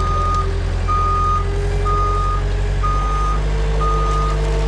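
Skid steer running with its backup alarm beeping steadily, about once a second, each beep a single half-second tone, over a loud engine drone. The engine note rises a little about three seconds in.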